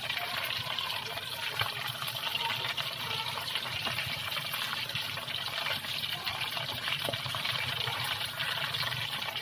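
Batter-coated chicken leg pieces deep-frying in hot oil: a steady sizzle with fine crackling.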